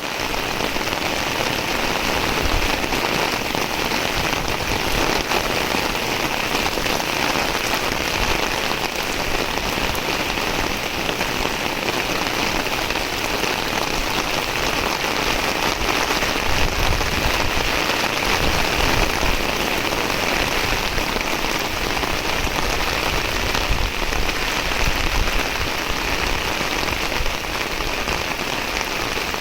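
Heavy rain pouring down steadily, with a low rumble that swells now and then underneath.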